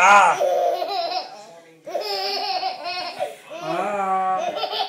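A 14-month-old baby laughing in long, high-pitched laughs, with a short break about a second and a half in before the laughing starts again.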